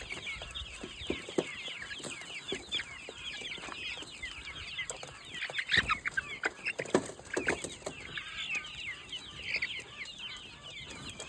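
Chickens: a dense, continuous chorus of high, short cheeping calls with clucking, and a few sharp knocks, the loudest about six and seven and a half seconds in.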